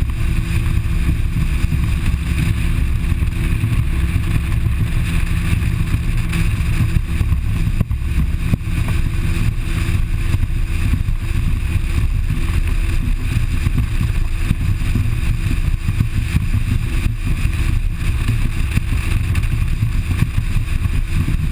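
A motorboat running steadily underway, its engine drone mixed with wind rushing over the microphone.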